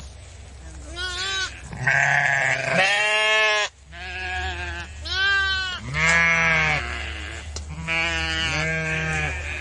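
A single sheep bleating: about seven wavering, quavering bleats, mostly in pairs with short gaps between them.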